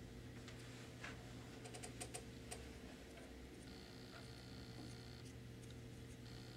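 Faint scattered clicks and taps of sculpting tools working firm polymer clay (Super Sculpey), over a steady electrical hum; a faint high whine comes and goes twice.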